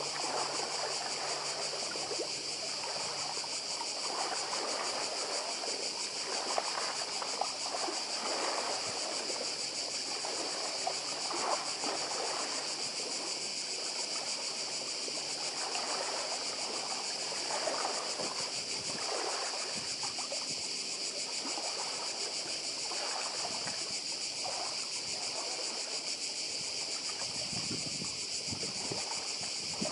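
A continuous high chorus of cicadas, with small sea waves lapping and trickling among the shore stones beneath it. A slightly heavier wash of water comes in near the end.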